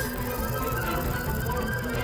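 Background music with sustained, held notes.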